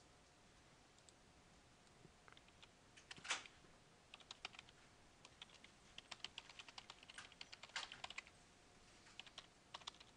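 Typing on a computer keyboard: faint, irregular keystrokes starting about two seconds in, with one louder click about three seconds in.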